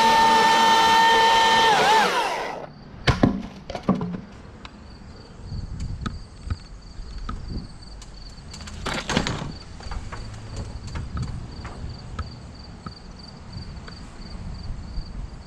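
Battery-powered chainsaw whining steadily as it cuts, then cutting off about two and a half seconds in. Sharp cracks and knocks of wood follow, with a second burst of cracking about nine seconds in, over a steady pulsing chirp of crickets.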